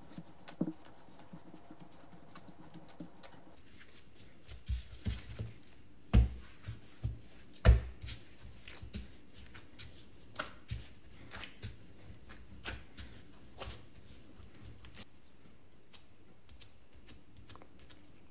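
Pizza dough being kneaded by gloved hands on a silicone pastry mat: irregular dull thumps and soft slaps as the dough is pushed and folded, two of them much louder than the rest, thinning out toward the end.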